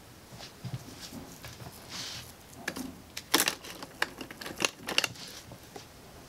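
Makeup products and cases being set down into plastic organizer trays in a drawer: a scatter of light plastic clicks and taps, with the sharpest clicks in the second half.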